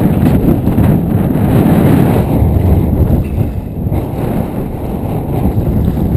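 Strong wind buffeting a GoPro Hero2's microphone, a loud low rumble that rises and falls, over choppy river water splashing around a kayak.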